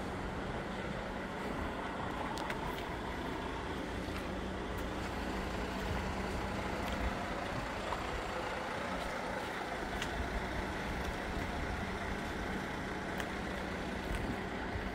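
Scania dump truck's DC13 straight-six diesel idling steadily with a low, even hum.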